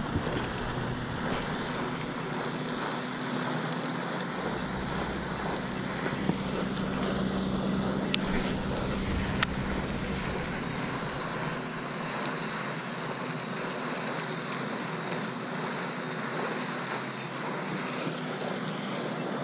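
Steady outdoor noise with wind on the microphone, and a few faint sharp clicks in the middle.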